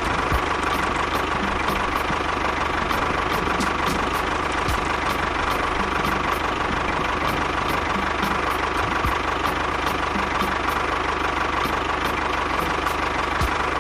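Small engine of a DIY mini tractor running steadily at a constant speed.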